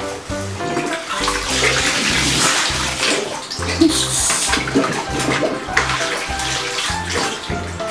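Water splashing and sloshing as two small children play in shallow water in an inflatable pool, over background music with a repeating bass line.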